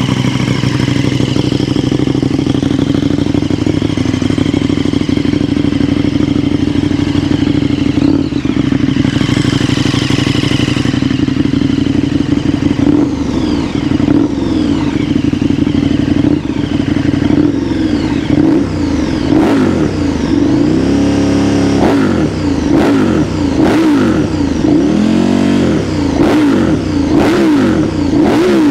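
2022 KTM 1290 Super Duke EVO's V-twin engine, breathing through an SC exhaust, idles steadily for about twelve seconds. Then it is revved in a series of quick throttle blips that rise and fall, with a few sharp cracks as the revs drop.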